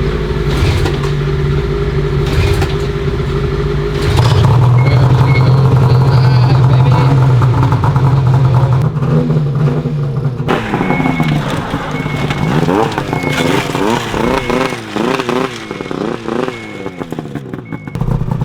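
Snowmobile engine, the freshly rebuilt engine of a 2004 Ski-Doo Rev, running steadily and getting louder about four seconds in. From about halfway through it is revved up and down repeatedly, with short, evenly spaced beeps sounding alongside.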